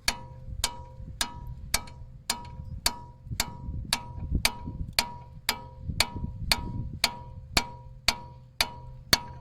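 Steady hammer strikes on a T30 Torx bit, about two a second, driving it into the stud of an anti-roll bar link to get more grip for holding the stud. Each blow gives a short metallic ring.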